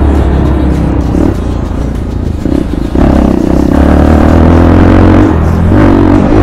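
An off-road motorcycle engine running, with background music laid over it.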